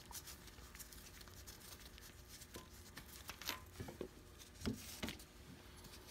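Faint handling sounds: light rustling and a few scattered clicks and knocks as a gloved hand pulls the spark plug out of the engine's cylinder head.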